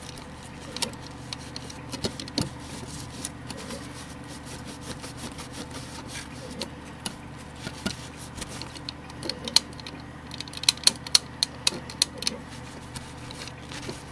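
A tissue wiping and rubbing over a floppy drive's metal chassis, with scattered clicks of handling and a quick run of sharp ticks about nine to twelve seconds in. A steady low hum runs underneath.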